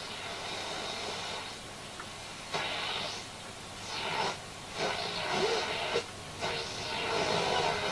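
Hacker Mini Herald RP17 transistor radio being tuned across the medium wave band: hiss and static that swell and drop off in fits as the dial moves, with brief snatches of stations.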